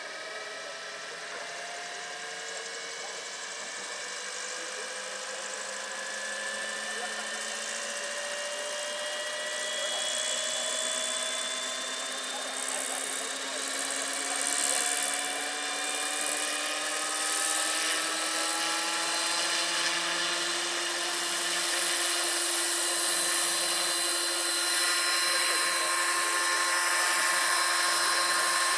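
A 700-size electric model helicopter (a Lockheed XH-51 scale model) winding up its rotor: the motor whine rises steadily in pitch and loudness for about twenty seconds. It then settles to a steady, louder rotor noise as the model lifts into a low hover near the end.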